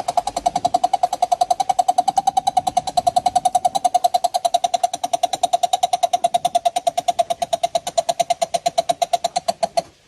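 Coucal calling: a long, fast run of even hoots at a single pitch, about eight or nine a second, which stops abruptly near the end.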